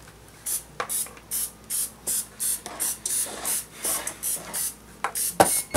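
Aerosol cooking spray hissing in short, repeated bursts, about two or three a second, as it is sprayed into the cups of a muffin tin.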